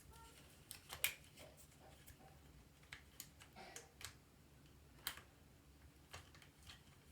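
Faint, scattered clicks and taps of small parts being handled: a dogbone and the differential being fitted into an RC truck's gearbox case, with a few sharper clicks a second or two apart.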